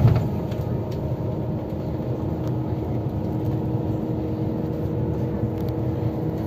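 Steady road and engine rumble heard from inside a moving vehicle cruising on a highway, with a faint steady hum; a brief louder low thump right at the start.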